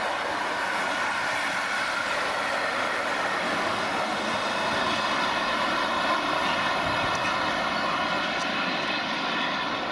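Freight train of car-transporter and sliding-wall wagons rolling past on the rails, a steady rushing rumble of wheels on track as the train moves off.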